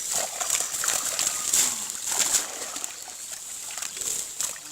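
Pond water splashing and sloshing in short, irregular splashes.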